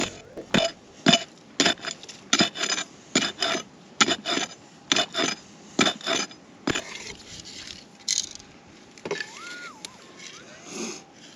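A digging tool scrapes and chips into schist ground in quick repeated strokes, about two a second, for roughly seven seconds. Near the end comes a metal detector's warbling, rising and falling tone over a target.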